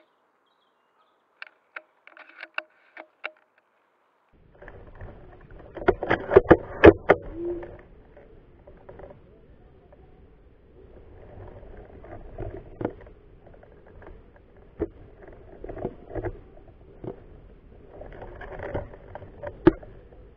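Handling noise of an airsoft sniper rifle and gear in undergrowth: a sharp click at the very start, a few separate clicks a second or two later, then irregular rustling with knocks and clicks, busiest about six to seven seconds in and again near the end.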